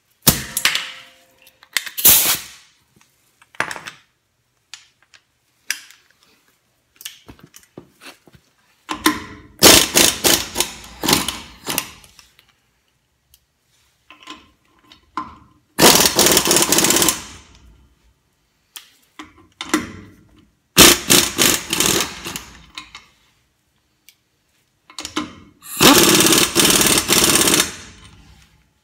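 Pneumatic impact wrench hammering on wheel lug nuts in about six separate bursts of rapid blows, each a second or two long, with short pauses between.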